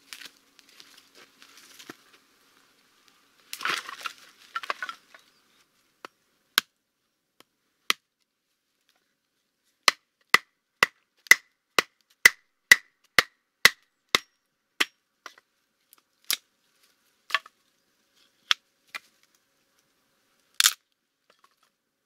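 An armful of firewood set down with a rustle and clatter, then a knife being batoned through a log to split kindling: sharp knocks, a fast run of about two a second in the middle with a short metallic ring in each as the blade's spine is struck, then slower, scattered knocks and one loud one near the end.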